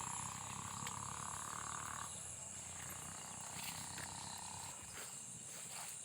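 A dog howling faintly: one long, level howl that ends about two seconds in, then a second, fainter howl.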